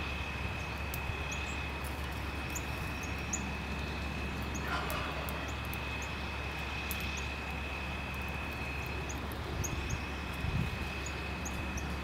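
Small songbirds giving short, very high chirps, scattered irregularly, with a brief falling run of notes about halfway through. Under them runs a steady low hum and a thin steady high tone.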